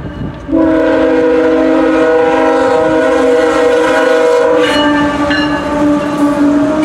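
Multi-chime air horn of a CSX GE ES44AH diesel locomotive, sounding a long chord for a grade crossing; it starts about half a second in, and its pitch drops slightly past the middle as the locomotive passes. Wheels clatter on the rails underneath.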